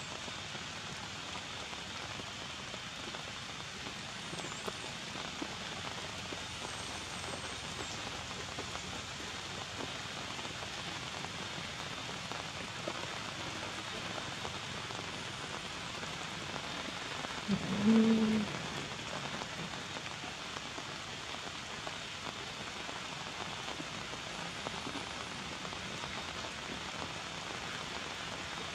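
Steady rain, an even hiss, with one short low-pitched call about two-thirds of the way in.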